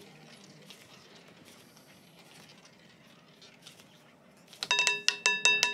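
Faint patter of a roulette ball running around the spinning wheel. About four and a half seconds in, a loud run of bright electronic chime notes from the online roulette game starts as the spin ends.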